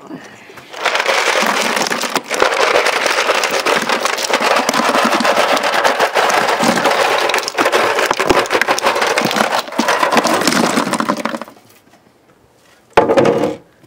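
Ice cubes poured into a plastic cooler over packed meat: a continuous crackling clatter of ice for about ten seconds, then a short burst near the end.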